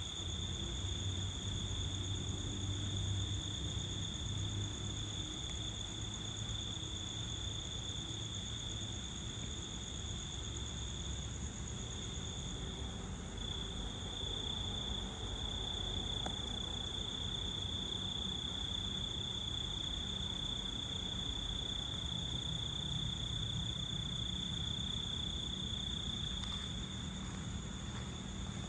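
Insects trilling: one continuous high-pitched tone over a low rumble, the rumble a little stronger in the first few seconds.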